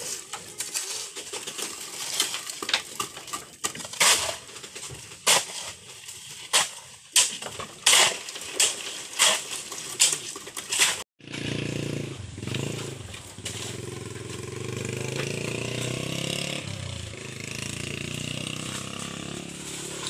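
Hand-tool work on a house-building site: a run of loud, sharp metal strikes and scrapes, about one or two a second, for the first ten seconds or so. After a sudden break the sound turns to a steady small-engine drone.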